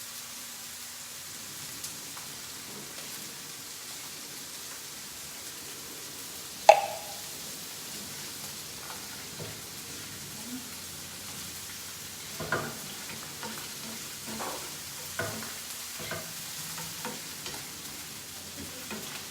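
Mushrooms and garlic sautéing in oil in a pan, with a steady sizzle. A single sharp clank comes about a third of the way in, then a run of utensil knocks against the pan in the second half as they are stirred.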